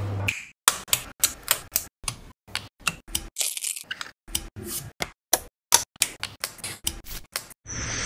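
Quick, irregular clicks and taps of small wooden dollhouse-kit pieces being handled and set down on a wooden tabletop, with two short rustling scrapes, one about three and a half seconds in and one near the end.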